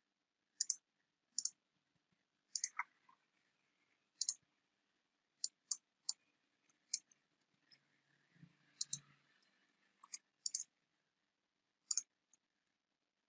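A dozen or so sharp clicks from a computer mouse and keyboard at irregular intervals, several coming in quick pairs, with quiet in between.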